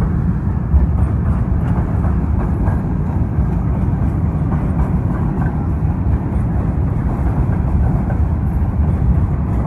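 Freight train cars rolling past close by: a steady, loud rumble of steel wheels on the rails with faint clicks.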